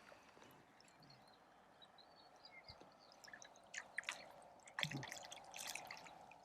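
Faint water drips and small splashes, a few sharper ones in the second half.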